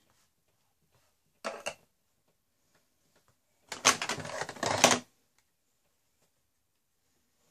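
Small objects being handled off the edge of a desk: a short clatter about a second and a half in, then a louder stretch of rattling and clicking lasting just over a second.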